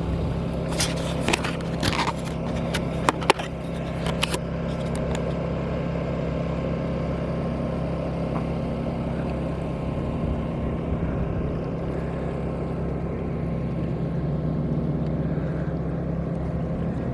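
Portable generator running steadily with a low, even hum, with a few short clicks in the first few seconds.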